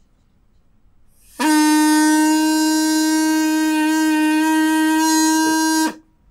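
Drinking straw with its end pressed flat, blown like a double reed: one steady, buzzy reed note that starts abruptly about a second and a half in, holds for about four and a half seconds and cuts off. The flattened tip vibrating in the breath is what makes the note.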